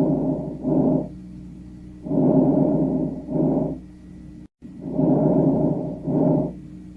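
Vesicular (normal) lung breath sounds heard through a stethoscope. Each cycle has a longer, soft, rustling inhalation followed by a shorter exhalation, repeating about every two and a half seconds, with no wheeze or crackle.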